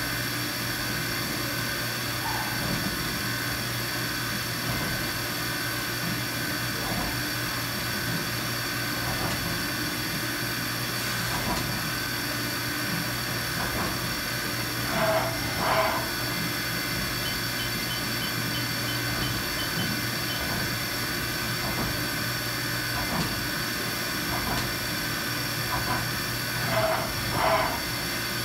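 1998 Haas HS-1RP CNC horizontal mill running a machining program, its spindle turning a small cutting tool at the work. There is a steady hum with several constant tones. Twice, about halfway through and again near the end, a pair of short, louder sounds comes through.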